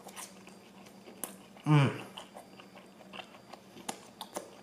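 Close-up chewing of a mouthful of sauce-soaked fried tofu, with soft wet mouth clicks, and a short hummed "mmm" of enjoyment about two seconds in.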